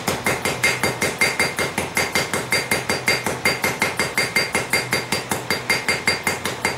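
Small blacksmith's hammer striking a red-hot railroad-spike fork tine on the anvil face in a quick, even rhythm of several blows a second, each blow leaving a short ring from the anvil: the tine being rounded while hot.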